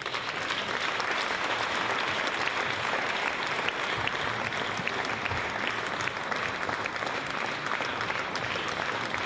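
Theatre audience applauding: steady clapping of many hands.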